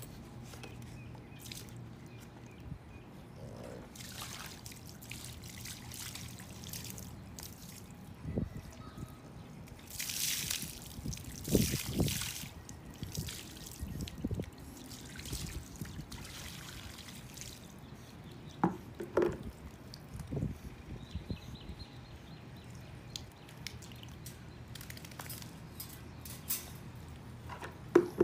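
Water poured from a plastic bucket over a puppy being rinsed, splashing and trickling onto concrete in several separate pours, the loudest about ten to twelve seconds in. A few short sharp sounds come in between the pours.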